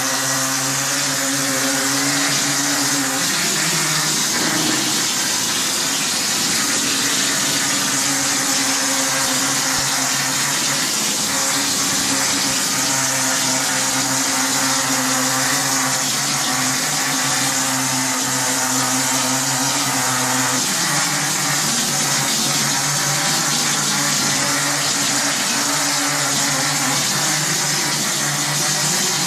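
Plastering machine running steadily: a motor hum under a constant hiss. The hum shifts in pitch about three seconds in and again about twenty seconds in.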